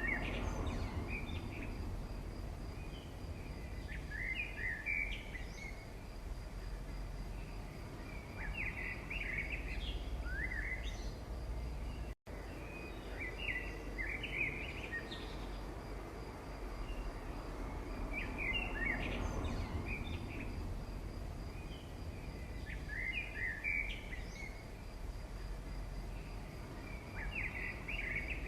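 Birdsong over a steady low background rumble: short chirping phrases about every four to five seconds, with a brief dropout about twelve seconds in.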